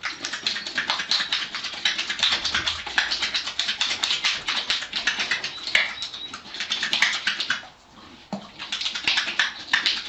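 A horse in its stall making a fast, dense run of clicks and clatters, with a short break about eight seconds in.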